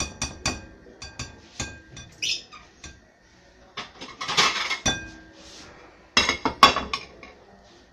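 Kitchen utensil clinking against a glass mixing bowl of marinade: a run of sharp clinks that ring briefly, a scraping rustle about four seconds in, and two louder knocks a little after six seconds.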